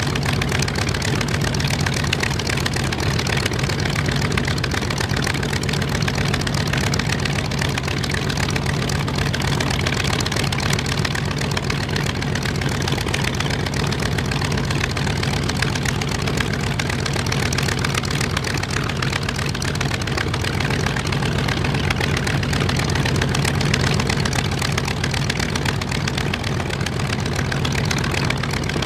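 Focke-Wulf Fw 190 A-8's 14-cylinder twin-row radial engine idling steadily with the propeller turning, warming up after the engine start.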